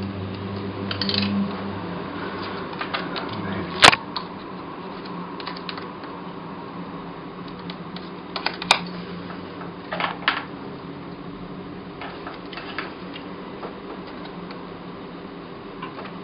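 Scattered small clicks and taps of an iPod Nano and its plastic screen protector being handled and pressed down, the sharpest a few seconds in, over a steady low hum.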